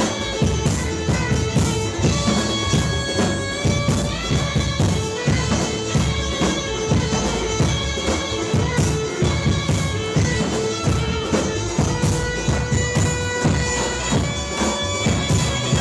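Greek gaida bagpipe playing a lively dance tune over a held drone, with a drum keeping a steady beat underneath.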